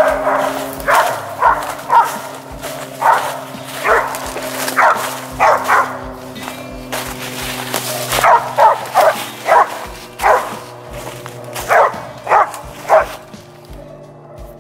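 Mountain cur barking at a tree, about eighteen short barks at one or two a second with a pause of a couple of seconds midway: the dog is treeing a squirrel. Background music runs underneath.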